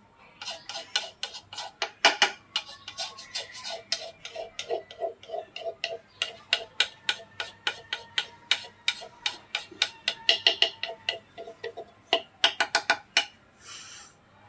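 Quick, uneven run of sharp taps, several a second, each with a short hollow ring. They stop shortly before the end.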